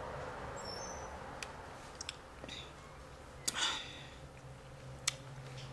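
Soda being sipped from a cup: a few small mouth and cup clicks, and a short sip about three and a half seconds in.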